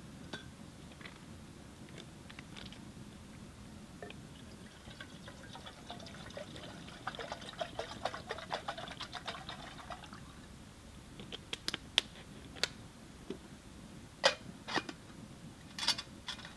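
Liquid poured from a container into a small metal cooking pot for about five seconds, the tone rising slightly as the pot fills. It is followed by a few sharp clinks as the pot is handled.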